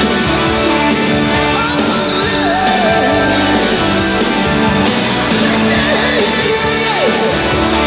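Rock song with a sung vocal over electric guitar, keyboards and drums.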